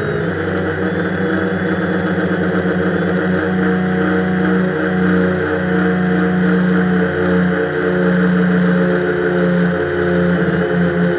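Quadcopter's electric motors and propellers whining, picked up close by the camera on board, with several steady tones that shift slightly in pitch every second or so.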